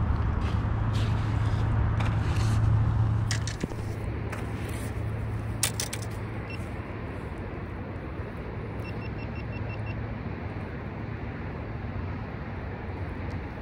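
Steady low outdoor rumble with a few sharp clicks and rustles from handling a freshly caught perch and the fishing rod. The rumble drops in level about three and a half seconds in.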